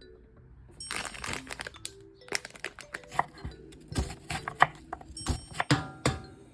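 Plastic wrapper of a Chapagetti instant-noodle packet crinkling and tearing as it is opened, starting about a second in, followed by a run of sharp crackles and clicks as the packet is handled.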